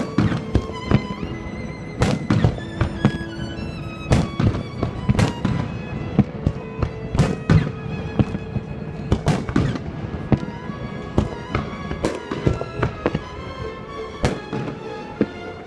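Fireworks show: many loud bangs in rapid succession, several a second, with music playing along underneath.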